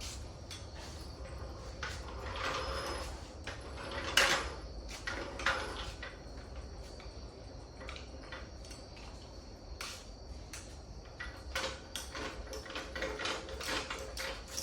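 Irregular mechanical clicks and clattering of things being handled, loudest about four seconds in, over a steady low hum.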